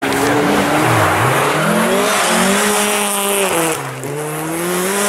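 Rally car engine at high revs, its pitch rising and falling repeatedly as the throttle is worked, with a steady hiss over it. The engine note dips sharply about a second in and again near four seconds.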